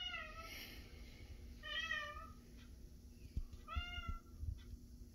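A house cat meowing three times, short meows about two seconds apart.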